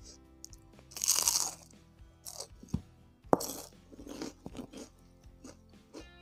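A loud crunching bite into a crispy battered fried snack (gorengan) about a second in, followed by a sharp crack and a run of crunchy chewing.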